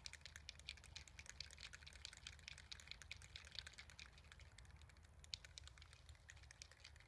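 Two aerosol spray paint cans shaken at once, the mixing balls inside rattling in a fast, faint clatter of clicks that thins out after about five seconds.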